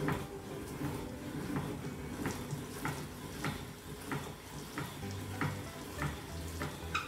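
Hand-cranked metal meat grinder being turned steadily, grinding a moist mix of grated young coconut and shrimp, with a short sharp click repeating about every half second with the turning crank.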